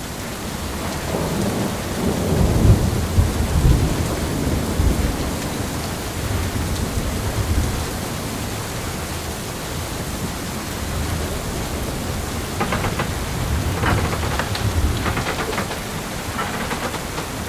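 Heavy rain and strong wind in a thunderstorm, with deep rumbling that is loudest about two to five seconds in. A run of sharp cracks and taps comes about thirteen to fifteen seconds in.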